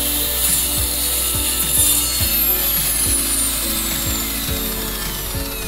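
An Evolution sliding compound mitre saw cuts through a wooden board, and its motor then winds down with a steadily falling whine from about two seconds in.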